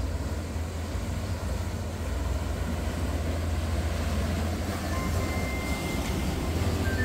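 River cruise boat's engine running as it passes close by, a steady low rumble that grows louder, with the wake churning the water. Music fades in near the end.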